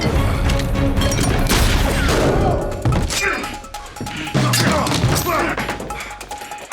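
Film action score playing under a fight, with sound effects of thuds, whacks and crashes. The sound is dense for the first couple of seconds, then thins to separate hits.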